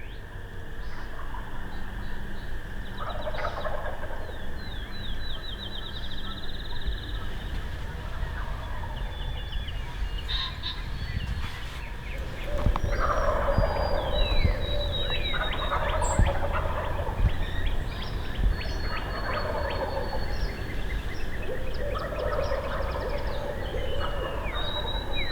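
Wild turkey toms gobbling: one faint gobble early on, then a run of louder, rattling gobbles every couple of seconds from about halfway through. Small birds chirp and sing high above them.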